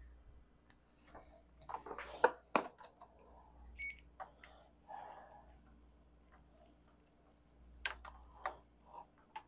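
Kobalt digital multimeter and its test leads being handled: scattered clicks and knocks, the loudest about two seconds in, and one short electronic beep about four seconds in as the meter is switched on.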